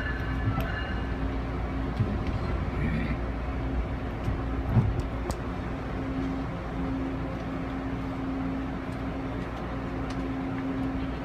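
Running noise inside an Amfleet passenger coach of a moving train: a steady low rumble with a constant hum, and a few light knocks and clicks, the strongest a little before the middle.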